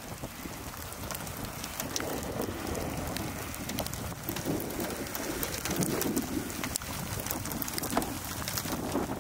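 Gusty storm wind buffeting the microphone, swelling and easing, with light rain: scattered sharp ticks of drops hitting.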